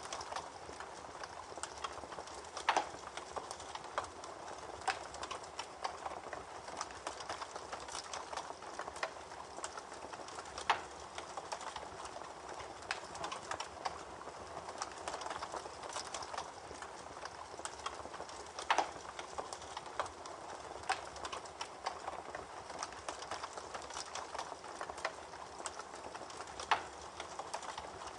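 Campfire burning: a steady hiss with irregular crackles and pops, and a sharper, louder pop about every eight seconds.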